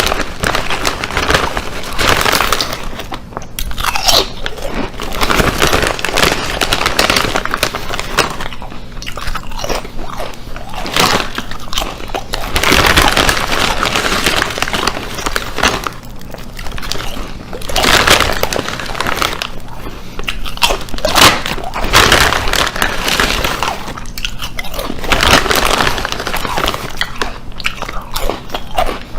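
Loud crunching and chewing of crisp potato chips, bite after bite, swelling and easing every second or two.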